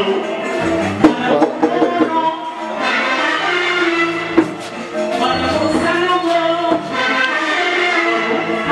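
Music playing.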